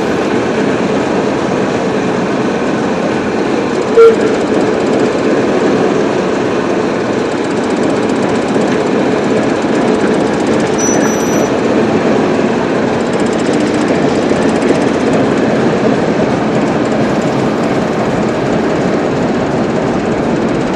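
Class 08 diesel shunter's English Electric six-cylinder engine running steadily close by, with a rattly chug. A brief sharp knock stands out about four seconds in.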